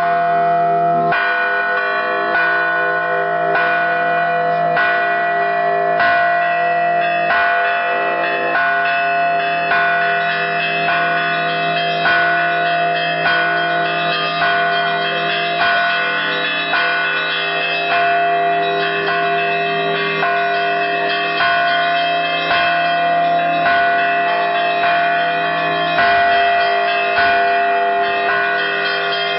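Several church bells rung by bell-ringers in a steady, rhythmic peal: strikes about one or two a second, each ringing on and overlapping with the next.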